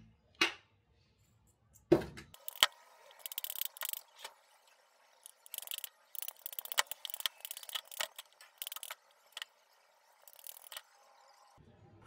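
A metal meat-tenderizer mallet tapping and knocking a silicon carbide casting mold apart, with irregular sharp clicks and crumbling as the mold breaks away from the cast iron piece inside.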